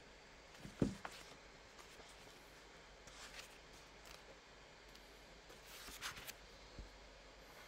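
Quiet small-room tone with a short soft thump a little under a second in, followed by a faint click, then scattered faint rustles and a small knock.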